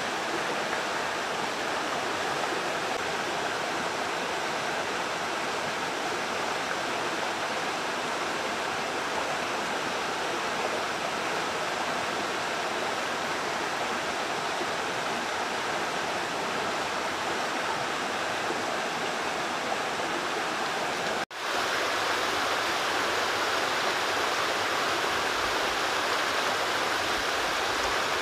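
Rushing water of a rocky mountain stream running over small cascades, a steady even rush. It breaks off for an instant about three-quarters of the way through and comes back a little louder.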